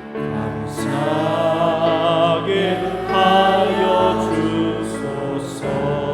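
Choir singing a hymn in sustained, wavering held notes over instrumental accompaniment.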